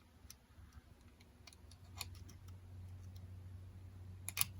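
Faint scattered clicks and ticks of a small plastic radio's case and volume knob being handled and turned, with a sharper double click near the end. A low steady hum comes in about halfway.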